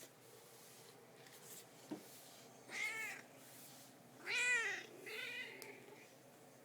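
Domestic cat meowing three times, the middle meow the loudest. She is a hungry cat meowing to be fed, with her food dish empty.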